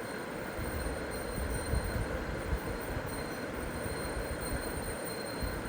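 Steady background noise: an irregular low rumble under a continuous hiss, with a faint steady high whine.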